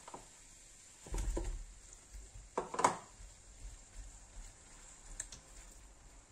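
Kitchen handling noises: two short bouts of knocking and rustling as food and utensils are handled at the counter, about a second in and just before three seconds in, the second the loudest, then a single faint click a little after five seconds.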